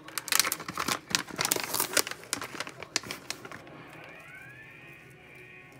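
Plastic packet crinkling and crackling as it is handled and reached into for shredded coconut, with many sharp crackles over the first three seconds, then quieter.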